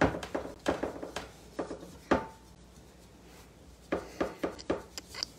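Damp cloth with cleaning paste scrubbed in quick, hard strokes over the outside of a dirty hammered metal pot, each stroke a sharp scuff or knock. The strokes come in two runs with a pause of about a second and a half between, and one stroke sets the pot ringing briefly.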